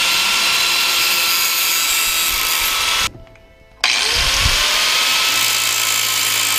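Angle grinder with a cutoff wheel cutting through a screw held in locking pliers: a steady high whine over a loud grinding hiss. About three seconds in the sound stops abruptly, then the grinder spins back up with a rising whine and carries on.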